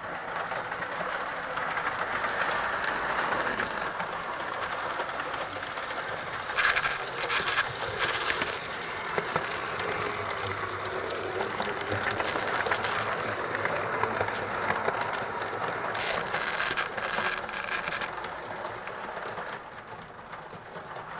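Model locomotives running on a model railway: a steady electric-motor whir and wheel noise on the track, with two spells of louder rapid clicking, about a third of the way in and again near the end.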